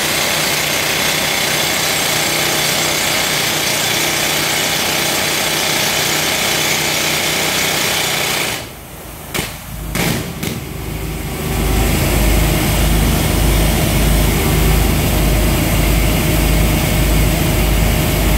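Toku TS 55 pneumatic rock drill running continuously as it bores into rock, then cutting off about eight and a half seconds in. After a few short knocks, a steady machine drone with a low pulsing throb takes over.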